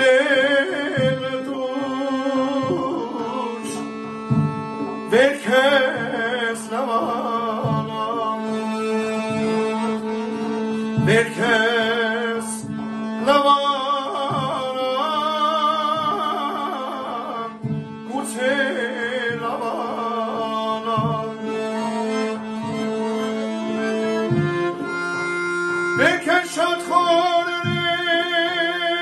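A man sings a mugham-style song in ornate, wavering phrases to his own piano accordion, a Weltmeister, which holds steady chords under the voice. The voice comes and goes in phrases, with the accordion carrying on alone between them.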